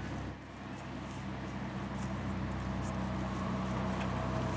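Steady low hum of an engine running, growing a little louder over the few seconds, with a few faint scuffs on top.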